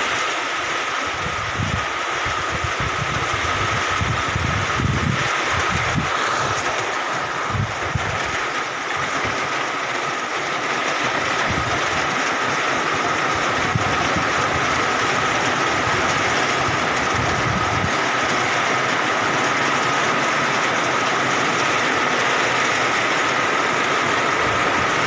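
Heavy rain falling on reeds and foliage as a steady, loud hiss, with a steady high tone running through it and wind buffeting the microphone in gusts during the first half.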